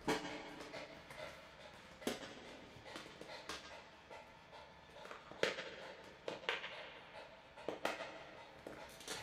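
A plastic cone collar being handled and fitted on a small dog: scattered sharp plastic clicks and knocks a second or more apart, with the dog panting.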